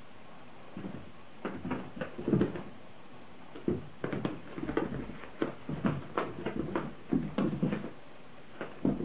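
Irregular soft thumps and scuffs of a heavy Maine Coon cat's paws on carpet as it chases a laser dot, starting about a second in and coming in uneven clusters.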